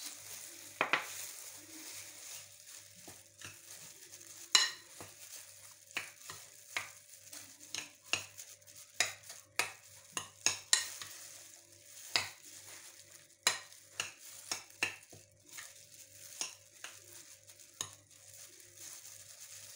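A hand in a plastic glove mixing salted raw minced beef in a glass bowl: irregular sharp clicks and crinkles, one or two a second, over a soft rustle.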